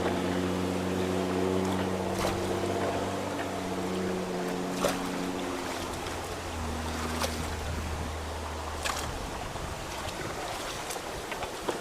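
A vehicle engine running with a steady low hum that fades out about nine seconds in, over the rush of rain-swollen water through a culvert. A few sharp clicks and knocks sound over it.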